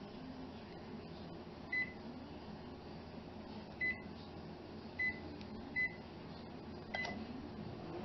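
Panasonic 1250 W microwave oven's keypad beeping five times as its buttons are pressed to set the power level and start it. About seven seconds in there is a click, and the oven starts to hum as it begins running with the newly replaced door safety switch.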